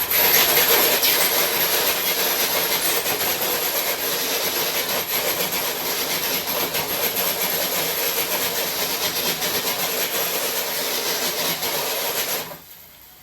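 Electric RC truck pulling a weighted load across the garage floor: a steady grinding scrape with a thin high motor whine, which cuts off suddenly near the end.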